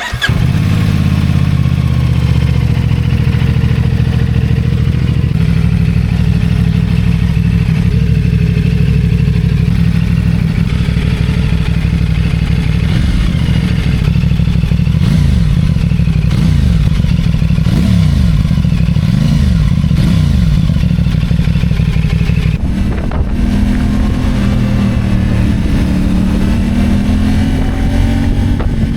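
CF Moto 450SR-S parallel-twin engine running through its stock exhaust. The note is steady, then rises and falls in pitch several times in the middle, with a shift in the note near the end.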